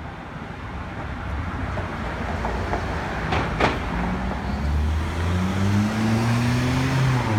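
Road vehicle engine accelerating, its pitch rising steadily over the last few seconds and then dropping as it shifts gear, over growing traffic noise. Two short clacks come about halfway through.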